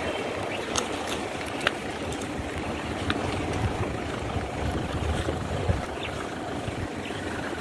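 Wind rumbling on the camera's microphone, a steady gusty noise, with a few sharp clicks scattered through it.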